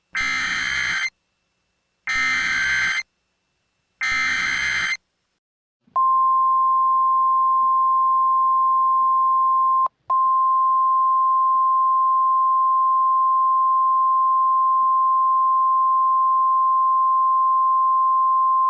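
Simulated Emergency Alert System alert: three short bursts of buzzing SAME digital header data, about two seconds apart, then the NOAA Weather Radio warning alarm, a single steady high-pitched tone held for about thirteen seconds with a brief break a few seconds in. These tones signal that a new weather warning is about to be broadcast.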